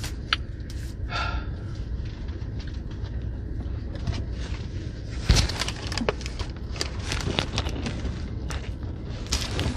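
Paper wrapper and cardboard food box rustling and crinkling as they are handled, with many small clicks and taps and one sharper knock about five seconds in, over a steady low rumble.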